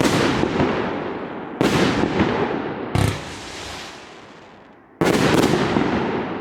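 25-shot consumer fireworks cake with 30 mm tubes firing: sharp bursts about every one and a half seconds, each trailing off, with a pause of about two seconds before a last pair of bursts close together near the end.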